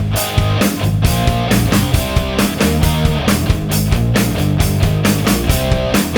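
Rock background music with guitar over a steady, driving drum beat.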